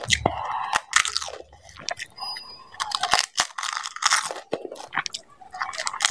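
Close-miked crunching of a dahi puri: the crisp, hollow puri shell cracks as it is bitten near the start, then is chewed in irregular crunches.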